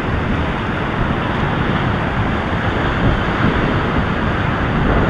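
Surf washing onto a sandy beach and breaking along a rock jetty, a steady rush of water, with wind buffeting the microphone.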